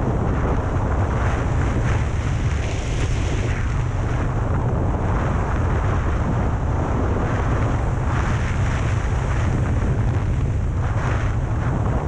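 Wind rushing over a helmet-mounted camera's microphone during a ski descent, a steady low rumble, with the hiss of skis on snow swelling and easing every few seconds as turns are made.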